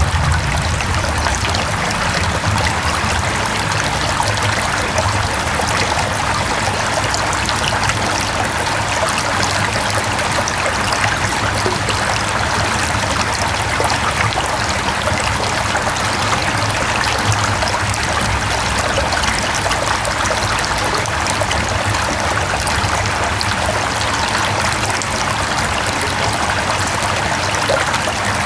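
Mountain stream rushing and trickling over rocks, a steady even flow of water.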